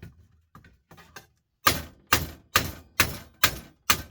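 Hammer blows on a desktop computer power supply being broken open: a few light knocks, then six hard strikes at about two a second.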